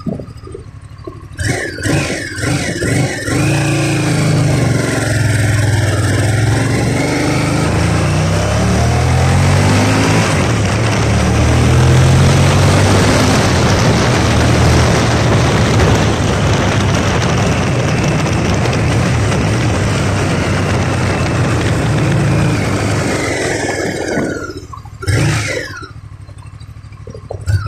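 Honda VTR1000 Firestorm's 90-degree V-twin pulling away hard and rising in pitch through the gears, then a long stretch at speed where wind rush over the microphone nearly buries the engine. Near the end the engine drops off and the wind fades as the bike slows, with two short bursts of revs.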